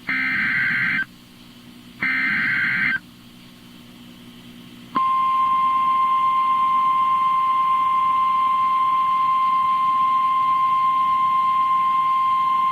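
Emergency Alert System SAME header data bursts from a NOAA Weather Radio broadcast: two harsh, warbling digital screeches about a second long and a second apart. About five seconds in, the steady single-pitch 1050 Hz NOAA Weather Radio warning alarm tone starts and holds, the signal that a warning message follows.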